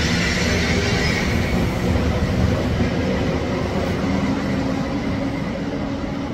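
Deutsche Bahn ICE train pulling out of the platform: a steady running rumble with a faint hum, and a high hiss that fades after about a second and a half.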